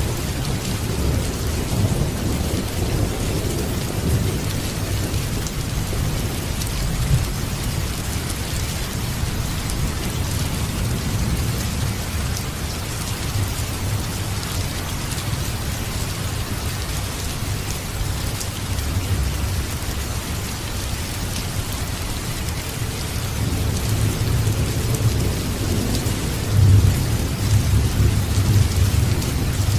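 Steady heavy rain with low rolling thunder rumbling underneath, the rumble swelling louder during the last few seconds.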